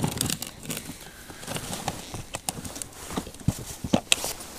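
Irregular taps, clicks and knocks on the ice as a freshly caught fish and the ice-fishing gear are handled, with a few louder, duller knocks near the end.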